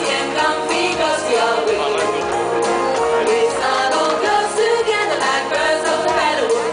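Group of women singing a Christmas song live, with musical accompaniment.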